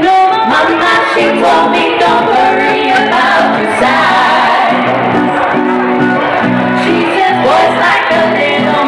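Three women singing in close harmony with acoustic guitar accompaniment, amplified live through a PA, in a recording of poor sound quality.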